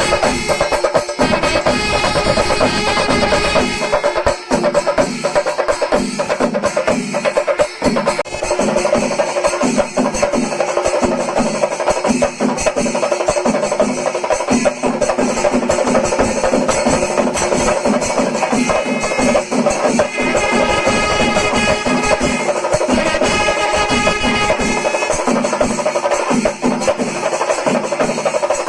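Kerala chenda melam: an ensemble of chenda drums beaten with sticks in fast, dense, driving rhythm, with ilathalam cymbals clashing along and no break.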